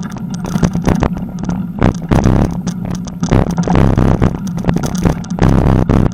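Ride noise from a camera on a moving bicycle: wind buffeting the microphone as a steady low rumble, with irregular knocks and rattles as the bike rolls over a bumpy, cracked path.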